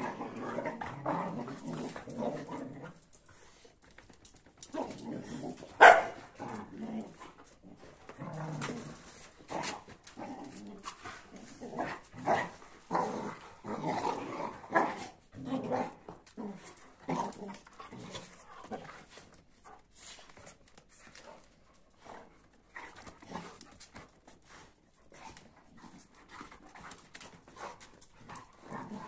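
Large dogs, a Kuvasz and a boerboel, growling and barking as they tussle, in irregular bouts with a sudden loud burst about six seconds in; the sounds thin out and grow quieter in the last third.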